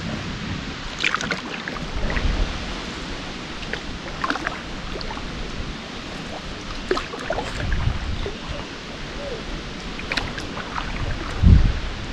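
Canoe paddle strokes dipping and splashing in calm river water, with drips off the blade, over steady wind noise on the microphone. A few low thumps, the loudest near the end.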